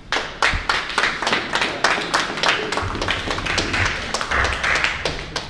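Spectators clapping, a quick run of sharp hand claps, about four a second.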